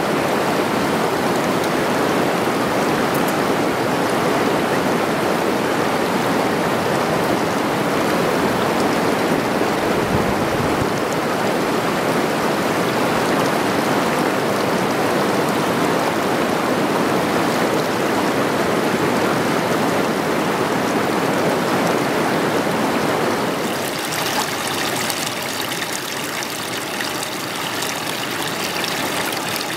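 Water of a small falls rushing and cascading over rock in a steady rush. Near the end the sound turns a little quieter and brighter, with more splashing.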